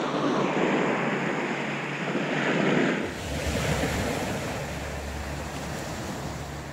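Surf breaking and washing up on a sandy beach, a steady rushing hiss with wind buffeting the microphone. The sound shifts about three seconds in to a more even, wider hiss of the waves.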